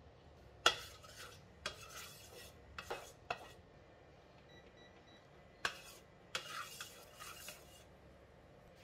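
Cast iron wok being handled while oil is spread in it: a series of sharp metallic clinks and knocks, each followed by a brief scrape.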